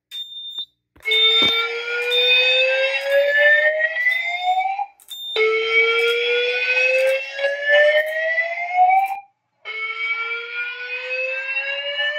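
Fire alarm voice-evacuation system sounding a slow whoop alert tone, set to the Siemens message. It plays three rising sweeps of about four seconds each with brief gaps between, after a short high beep at the start.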